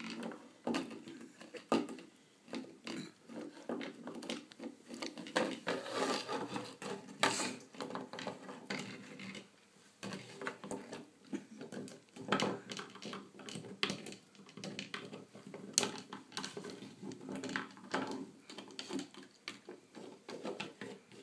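Puppy gnawing and chewing a dried pig's ear: irregular crunches and clicks, with the chew knocking and scraping on the wooden floorboards.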